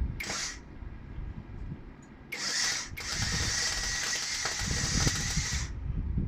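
A power cut-off tool with a cutting disc, run in short goes against the steel outrigger of a Triumph Spitfire chassis: a brief burst just after the start, another at about two seconds in, then a steadier cut of nearly three seconds that stops sharply.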